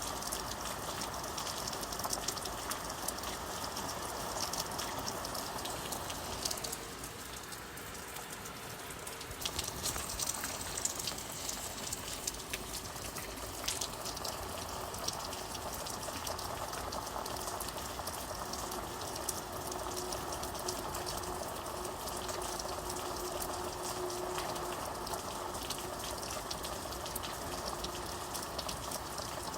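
Steady rain: an even hiss with many small drop ticks, easing briefly about seven seconds in.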